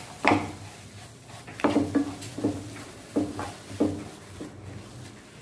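Spatula knocking and scraping against a non-stick frying pan while gongura leaves and tamarind are stirred and fried. There are about half a dozen sharp knocks over the first four seconds, several with a short low ring.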